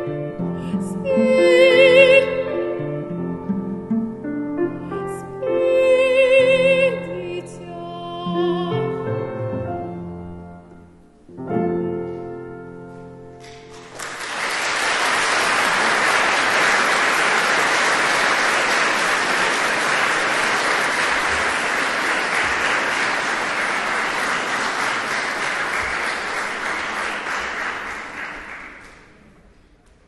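A woman's classical singing voice, with wide vibrato, over piano and cello closes an art-song lullaby, ending on a final held chord about 12 seconds in. Audience applause then follows for about fifteen seconds and dies away near the end.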